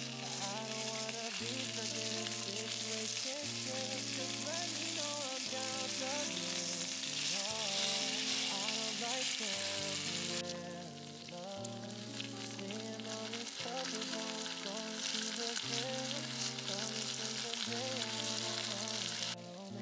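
A slab of fatty pork jowl sizzling in oil in a nonstick frying pan as it is turned with tongs, over background music. The sizzle dips for a moment a little after halfway.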